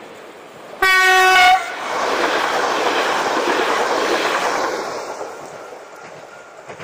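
A Koleje Śląskie Pesa Elf electric multiple unit sounds one short, single-pitched horn blast about a second in, then passes close by with a rushing noise of wheels on rail that fades over the last couple of seconds.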